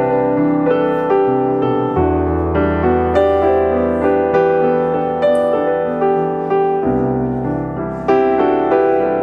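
Background piano music, with notes struck about every half second, each fading away, and a low bass note from about two seconds in.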